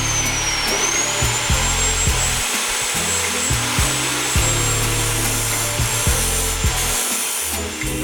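Bosch GCO 240 metal cut-off saw running at speed: a high motor whine that sags briefly under load shortly after the start and climbs back, over a steady grinding hiss.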